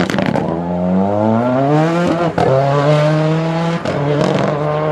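Rally car engine accelerating hard out of a tight corner, climbing in pitch, then upshifting about two seconds in and pulling on at a steady note with another brief break near four seconds.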